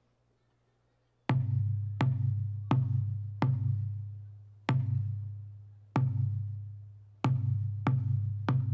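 Large drums struck hard in unison, about nine heavy booming strokes in a slow, uneven rhythm, each ringing on low before the next; the strokes begin about a second in.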